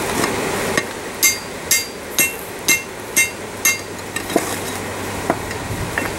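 Half-inch rebar being upset on a steel anvil, with its red-hot end struck against the anvil face. The steel-on-steel strikes come about twice a second, each with a bright ring, and grow lighter over the last couple of seconds.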